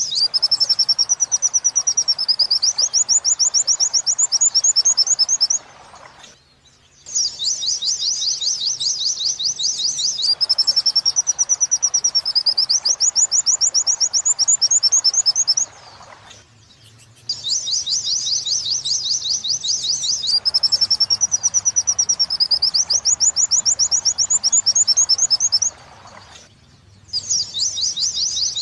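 Pleci (white-eye) song of the 'wit-wit sambung kunti' type, played as a looped birdsong training recording. Fast, high twittering trills run in phrases of about five seconds, each with a rising and falling warble partway through. The same phrase repeats three times, with short pauses between.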